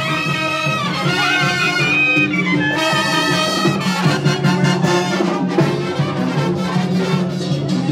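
Mexican brass band music: trumpets and trombones playing held, wavering melody notes over a steady bass line and a regular drum beat.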